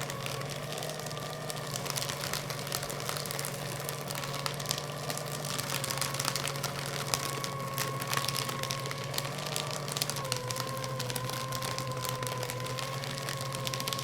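Electric paper shredder running: a steady motor whine with a dense crackle of paper being cut. The whine dips slightly in pitch about ten seconds in.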